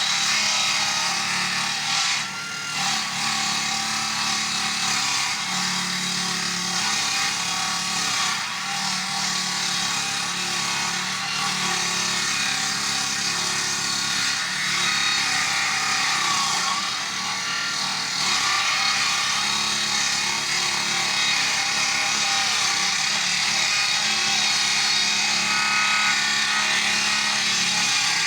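Chainsaw running and cutting through wood, its engine note wavering under load with a brief dip about two seconds in.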